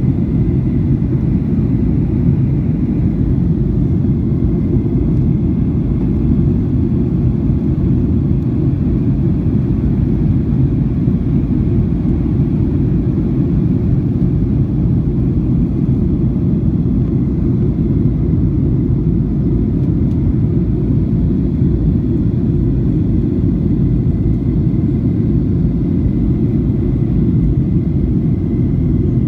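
Airliner cabin noise heard from inside the cabin: a steady low rumble of the jet engines and airflow, with a faint steady high tone above it.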